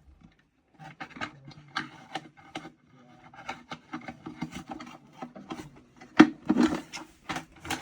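Irregular light knocks and rubbing on wood, with one sharper knock about six seconds in.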